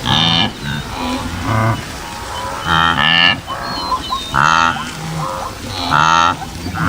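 Large animals calling in a group: overlapping low, mooing calls that bend in pitch, the loudest about every one and a half seconds.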